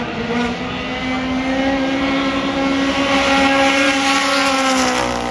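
Sport compact dirt-track race car's four-cylinder engine running at high revs as it passes close by, growing louder and then dropping in pitch near the end as it goes past.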